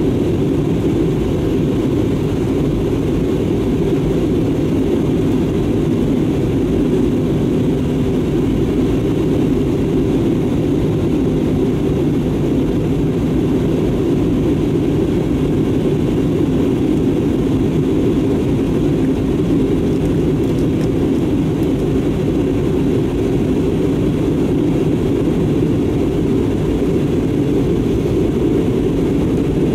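Steady, unchanging low drone inside the passenger cabin of an Airbus A320neo airliner: engine and airflow noise.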